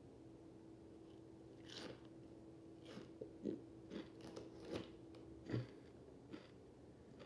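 A person chewing a mouthful of crunchy baked snack fries with the mouth closed. Irregular crunches start about two seconds in, the loudest a little before the end.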